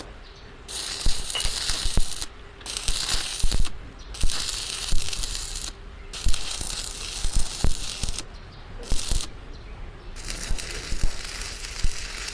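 Crackling, hissing metalwork noise in repeated bursts of one to two seconds, with short breaks between them and scattered clicks and knocks.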